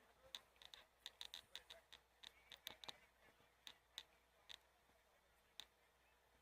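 Near silence broken by faint, irregular sharp clicks, several a second at first, thinning to a few single clicks later on.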